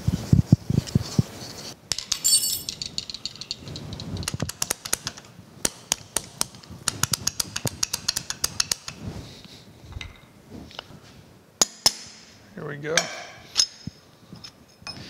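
Runs of quick, light metallic clicks and clinks as the screws holding a dividing head's index plate are backed out with a screwdriver and handled, with a few sharper clinks near the end.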